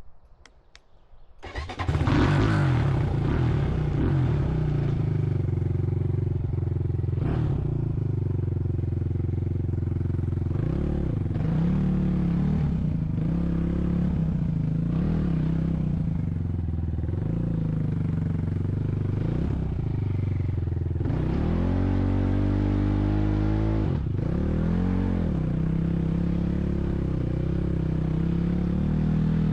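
A motor vehicle's engine starts up suddenly about two seconds in and keeps running, its pitch falling and rising several times as it is revved or driven.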